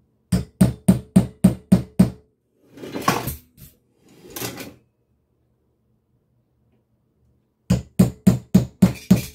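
Hammer driving a large nail through a plastic soda-bottle cap laid on a block of wood, punching drain holes: two runs of quick blows, about three a second, with two brief scraping sounds in the pause between.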